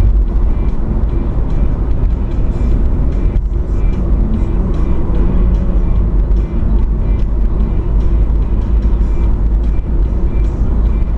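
A car on the move: steady road and engine noise dominated by a deep, constant rumble.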